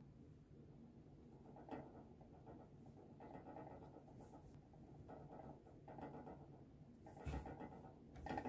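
Near silence: room tone with a few faint rustles from hands handling a small plastic toy, and a soft bump near the end.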